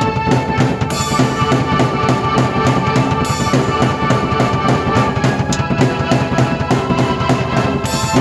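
Drum kit and keyboard playing together in an instrumental piece: a steady drum beat with cymbal crashes about a second in, a little past three seconds and near the end, over held keyboard notes.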